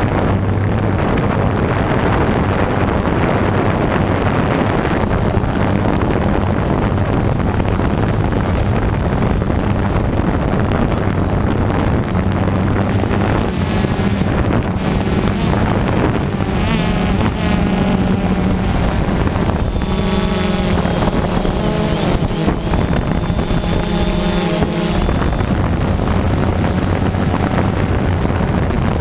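Quadcopter drone's motors and propellers humming steadily, heard close up from the onboard camera, with wind rushing on the microphone. For a stretch in the middle the tone shifts and wavers.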